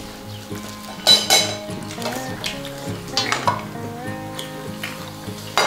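Close-up eating sounds of braised kimchi and pork ribs: wet smacking and crackly chewing, with sharp clicks about a second in, around three seconds and near the end, over soft background music.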